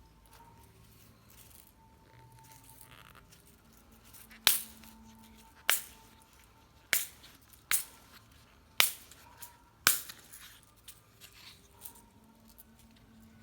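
Slime being worked by hand: after a quiet start, six loud sharp pops about a second apart, then a run of smaller crackles. Faint background music underneath.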